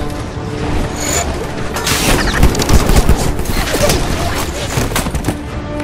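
Rifle fire from several guns in rapid, overlapping volleys, starting about two seconds in and dying away near the end.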